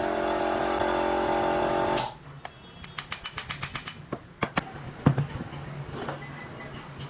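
A workshop machine's motor running steadily with a whining tone, cutting off suddenly about two seconds in. Then comes a quick run of light clicks and taps, and a low hum near the end.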